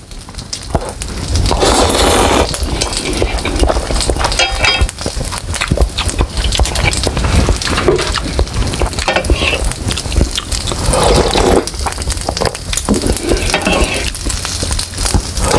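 Slurping of instant noodles and wet chewing, in repeated bursts with many small mouth clicks.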